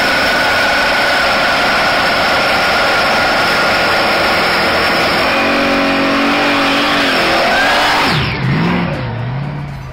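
Chevrolet Malibu with a supercharged engine poking through the hood doing a burnout: tyres squealing with the engine held at high revs. Just after eight seconds the squeal stops abruptly and the engine note drops, then rises and dips.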